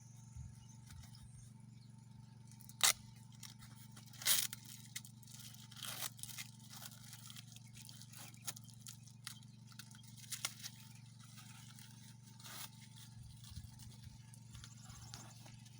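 Irregular scrapes and rustles of a camping tent being handled, with sharp scrapes about 3 and 4 seconds in, over a faint steady low hum.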